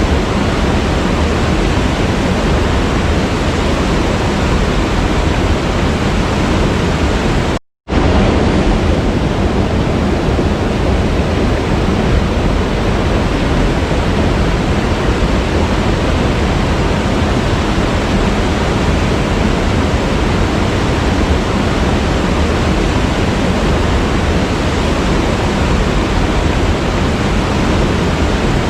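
Waterfall, a steady, dense rush of falling water heavy in the low end. It cuts out for a split second about eight seconds in, then carries on unchanged.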